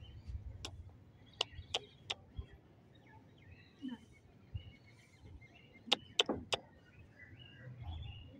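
A few sharp clicks, four in quick succession near the start and three more about six seconds in, over faint scattered chirping of small birds.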